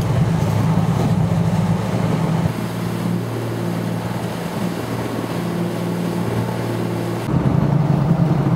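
Fishing boat's engine running steadily while the boat is underway, a constant low drone over the hiss of wind and water. Its tone shifts about two and a half seconds in and again near the end.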